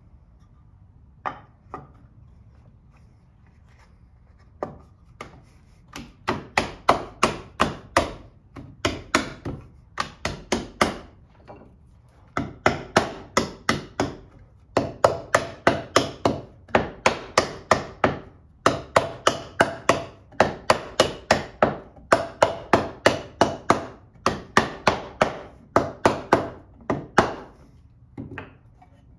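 Rapid mallet blows on wood in hand-tool dovetail joinery, about three strikes a second in long runs with short pauses, after a few scattered knocks at the start.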